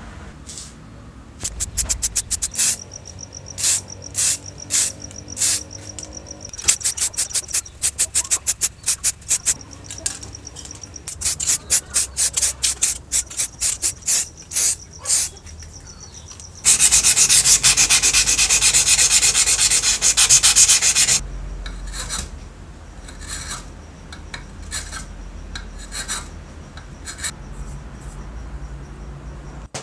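Hand sanding or scrubbing of metal saw parts: runs of many short rubbing strokes, sometimes quick, sometimes slower. In the middle comes about four seconds of a loud steady hiss like a spray can painting, then lighter, scattered rubbing strokes.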